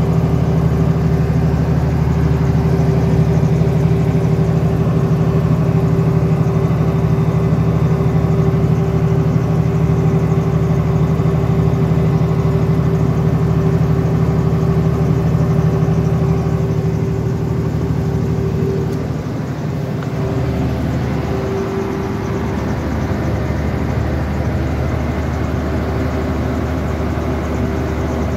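Denyo generator engine running at a steady speed with an even hum, its level dropping slightly about two-thirds of the way through.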